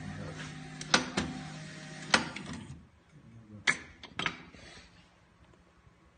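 Semi-automatic round-bottle labeling machine running with a steady motor hum and a few sharp clicks, the hum stopping about three seconds in. Two more sharp clicks follow about a second later.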